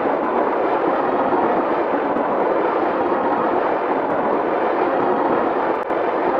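A steady rushing noise with no distinct tones, even throughout apart from a brief dip near the end.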